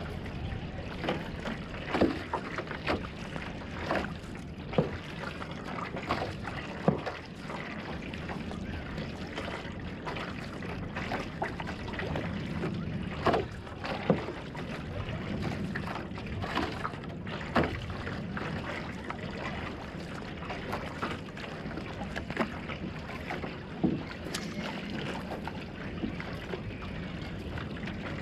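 Single-person outrigger canoe being paddled: steady water noise along the hull, with irregular sharp water slaps and paddle splashes every second or two.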